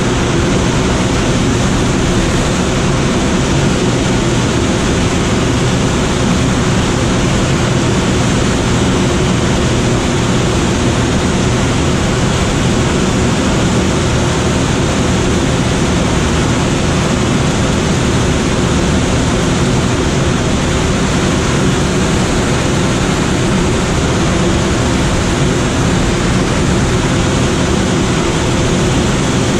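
Steady rush of air over a Schweizer SGS 2-32 glider's cockpit in flight, with a low steady hum underneath.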